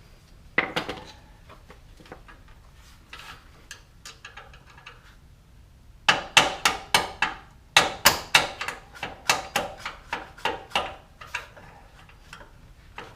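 Hammer tapping on the steel upper control arm bolt of a Toyota 4Runner's front suspension to drive it out: one knock near the start, then from about halfway a long run of sharp metallic strikes, about three or four a second.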